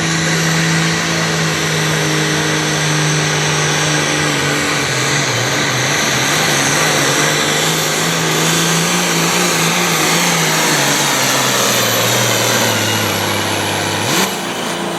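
Turbocharged diesel engine of a 9,000-lb Pro Farm pulling tractor running flat out under load, dragging the sled. Its pitch sinks steadily as the sled bears down, with a turbo whine above it. Near the end the pitch shoots sharply up.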